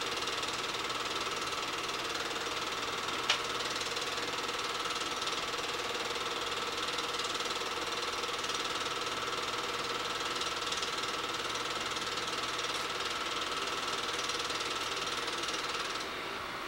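8mm film projector running steadily, its mechanism giving a constant even noise with a steady hum, and one sharp click about three seconds in. The sound drops slightly in level near the end.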